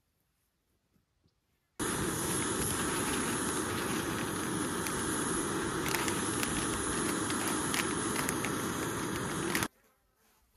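Backpacking canister stove burner running with a loud, steady hiss, starting abruptly about two seconds in and cutting off abruptly near the end.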